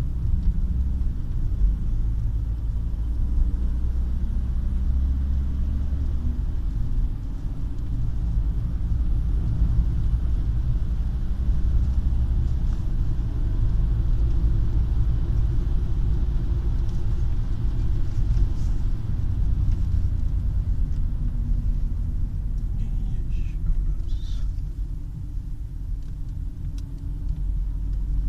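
Volkswagen Touran engine running at about 1700–2000 rpm, a steady low rumble. This is the engine-speed range at which the owner says a whistle sets in.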